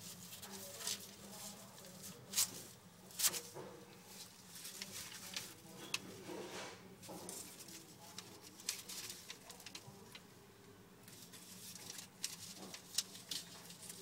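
Savannah monitor eating a mouse on newspaper: scattered sharp clicks and soft rustling of paper and claws as it works the prey down, over a steady low hum.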